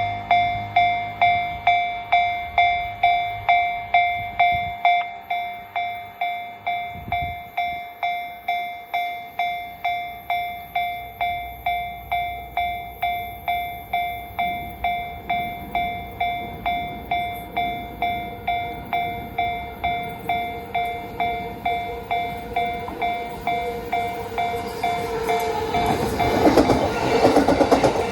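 Japanese level-crossing warning bell ringing steadily in an even, rapid rhythm of repeated ringing strikes. Near the end a train's rumble and wheel clatter grow loud over the bell as the train reaches the crossing.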